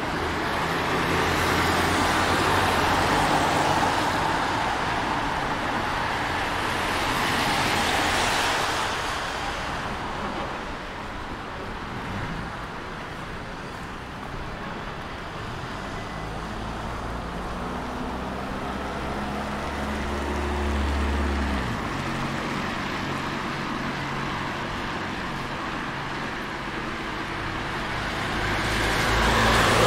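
Street traffic: cars passing close by, their tyre and engine noise swelling and fading a couple of seconds in, again around eight seconds and once more near the end, over a low engine hum that stops about twenty seconds in.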